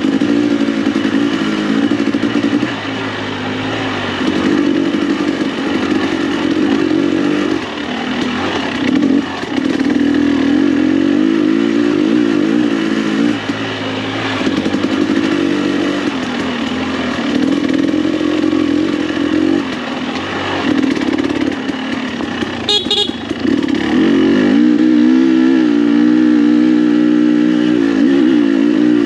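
2021 KTM 300 XC-W TPI single-cylinder two-stroke engine running through an FMF spark-arrestor muffler, the throttle opening and closing again and again so the pitch keeps rising and falling. A short rattle comes about 23 seconds in, and the engine holds louder and steadier from just after it.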